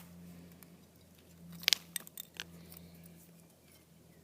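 A few light clicks and taps from the plastic parts of a wireless computer mouse being handled and pried apart, clustered about halfway through, over a faint steady hum.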